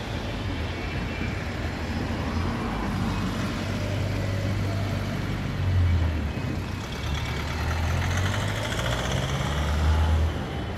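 Street traffic: motor vehicle engines running with a steady low hum, swelling briefly about six seconds in and again near the end.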